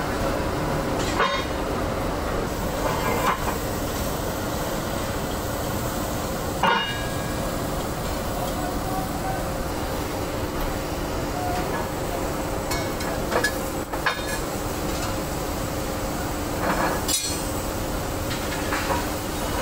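Heavy iron bars clanking against each other a few times as they are handled and stacked, some strikes ringing briefly, over a steady workshop machine hum.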